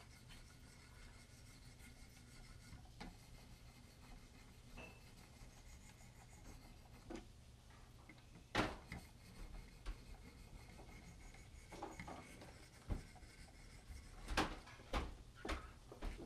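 400-grit paddles of a Wicked Edge guided sharpener stroking along a SOG tanto blade: a faint rubbing scrape. Scattered clicks and knocks come with it, a sharp one about halfway through and several in quick succession near the end.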